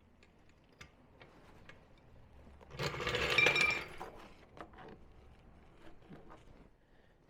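A brief burst of rapid mechanical clattering from tool work at a car wheel during a tire change, about a second long and a few seconds in, with scattered small clicks and knocks around it.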